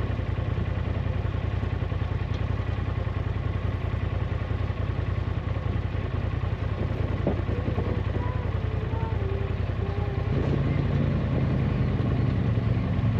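Side-by-side UTV engine running steadily while driving, getting a little louder about ten seconds in.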